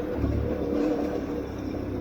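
Aprilia Tuareg 660's parallel-twin engine running at a steady pitch, with a rough rumble beneath it.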